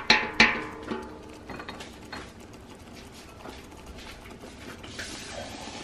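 Two sharp metal clanks against a stainless steel stockpot right at the start, ringing briefly, then a few faint clicks. Near the end a soft rushing hiss begins as water starts pouring into the pot.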